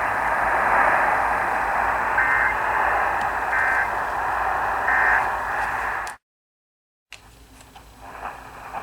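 Radio receiver hiss and static with three short two-tone data bursts about 1.3 s apart: the Emergency Alert System end-of-message (EOM) tones that close the required monthly test. About six seconds in, the audio cuts to dead silence for about a second, then comes back quieter with crackling static.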